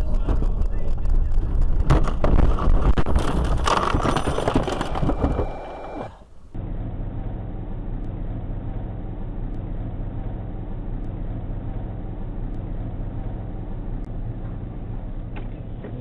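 A loud, noisy stretch with many sharp clicks for the first six seconds, cutting off suddenly. Then a car's steady engine and road hum, recorded by a dashcam.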